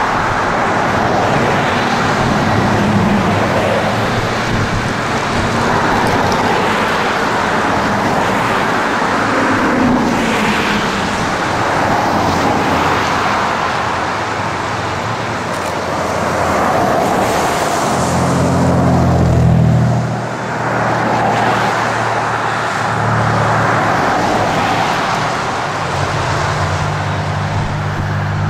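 Road traffic noise: a steady wash of cars passing on the highway, with the low hum of a nearer vehicle's engine rising about two-thirds of the way through and again near the end.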